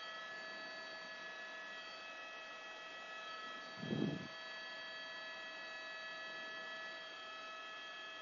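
Steady helicopter cabin noise picked up through the crew's headset microphone: a constant whine made of several fixed tones over a faint hiss. A brief low thump about four seconds in.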